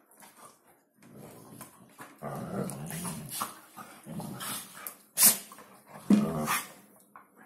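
Two Hungarian vizslas play-fighting, growling and grumbling at each other in low rumbling bouts from about two seconds in. A short, sharp yip about five seconds in is the loudest sound, followed by another loud growling cry a second later.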